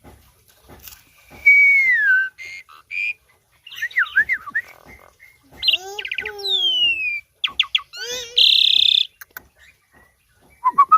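Asian pied starling (jalak suren) singing vigorously: a varied run of slurred, falling whistles and quick chattering notes, with a harsh buzzy note about eight seconds in.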